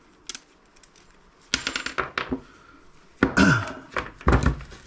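Clicks, knocks and clatter of small plastic and metal parts being handled and pulled apart by hand, in uneven groups, with the loudest knock near the end.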